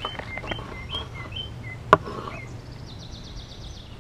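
Songbirds chirping repeatedly in short rising and falling notes, with a fast high trill near the end. A knife works through a smoked brisket on a wooden cutting board, with a single sharp knock about two seconds in.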